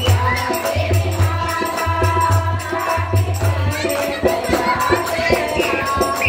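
A group of women singing a devotional bhajan in chorus, with rhythmic hand-clapping and a low beat that repeats about once a second.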